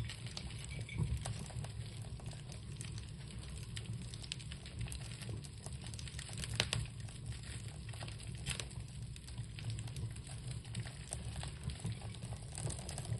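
Small ritual fire crackling, with scattered sharp pops over a low steady rumble.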